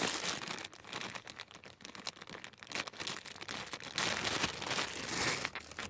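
Packaging crinkling and rustling as a shift knob is pulled out of it by hand. It comes as irregular crackles, louder at the start and again from about four seconds in.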